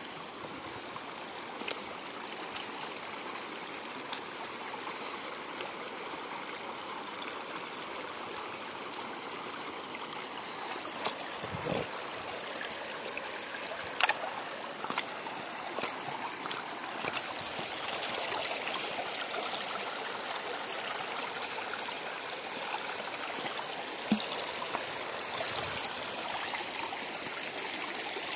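Shallow river water running and trickling over stones, steady, growing a little louder past the middle. A few short sharp knocks stand out, the loudest about halfway through.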